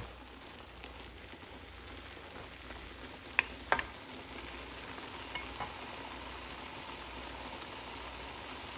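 Shrimp and chopped vegetables sizzling steadily in a ceramic nonstick pan as the last of the liquid cooks off. Two sharp clicks, a third of a second apart, come a little over three seconds in, from the wooden spatula against the pan.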